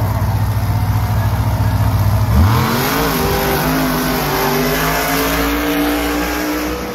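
Monster truck's supercharged V8 idling with a deep hum, then about two and a half seconds in revving hard as the truck launches, its pitch sweeping up sharply and holding high, still climbing slowly, as it drives down the start ramp.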